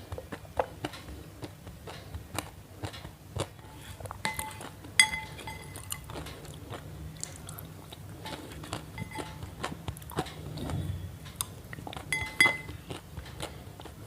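Close-up crunching and crisp clicks at an irregular pace, with two ringing clinks like a hard dish or utensil being struck, about 5 s and 12.5 s in.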